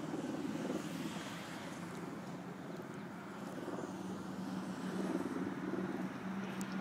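Small RC model airplane engine idling with a steady low hum.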